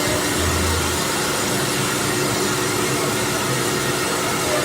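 CNC router running: a steady, even hiss with a faint steady hum beneath it.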